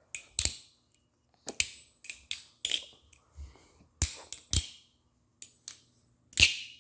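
Squid Trainer 3.5 balisong trainer being flipped: a string of irregular sharp clacks as the handles swing closed and open, some followed by a thin high tuning-fork ring. The loudest clack comes near the end and leaves a ring that keeps sounding.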